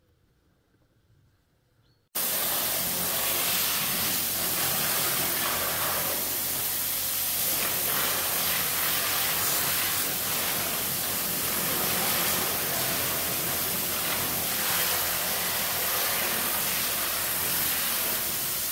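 Near silence, then about two seconds in a loud, steady hiss starts abruptly and holds, with a faint low hum beneath it.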